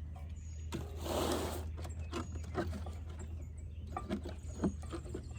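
Brake parts being handled and fitted: a few separate light knocks and clicks, with a short loud rushing noise about a second in, over a steady low hum.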